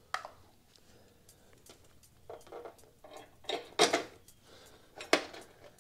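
Scattered sharp metallic clinks and light scraping as a bolt and its spacer are handled and fitted to a motorcycle's fender bracket, with a few louder clinks in the second half.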